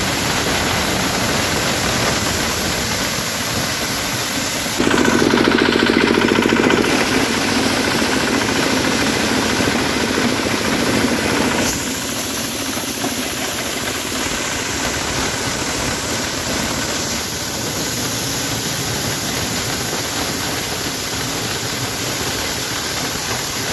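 Engine-driven corn sheller running loudly and steadily while it shells maize, with the sound shifting a few times and a louder stretch about five to seven seconds in.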